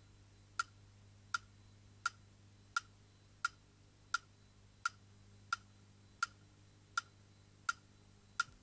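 Clock ticking steadily, with sharp, faint, evenly spaced ticks about every 0.7 seconds over a low hum.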